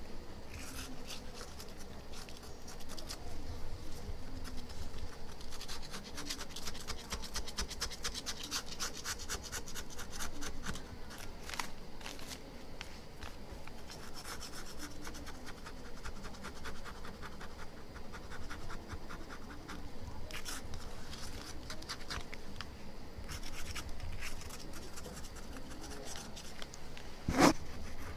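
Plastic scraper rasping over softened old glue on an iPhone 6 Plus LCD in quick repeated strokes, clearing away the adhesive left after the cracked glass was separated. One sharp knock near the end.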